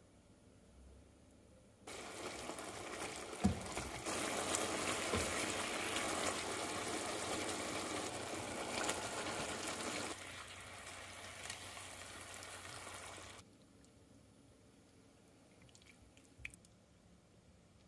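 Stir-fry vegetables sizzling and bubbling in sauce in a frying pan. It starts about two seconds in, jumps in level twice and cuts off abruptly about eleven seconds later. A couple of faint clicks follow near the end.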